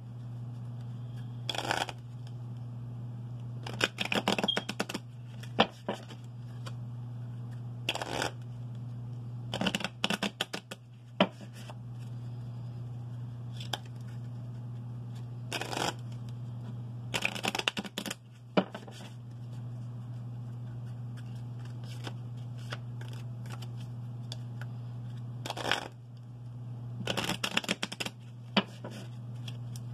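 A deck of Gypsy Oracle cards being shuffled by hand, in repeated bursts of riffling a few seconds apart, over a steady low hum.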